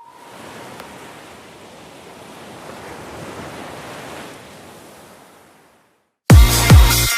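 A rushing, wind-like noise that swells and then fades away to silence. About six seconds in, electronic dance music cuts in loudly with deep, falling bass notes.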